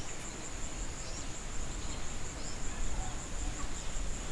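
Insects chirring in one steady, high-pitched drone that pulses faintly, over an uneven low rumble.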